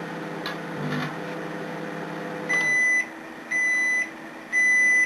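Microwave oven humming, then shutting off about two and a half seconds in and sounding its end-of-cycle beeps: three single-pitch beeps, one a second, that signal the cooking time is up.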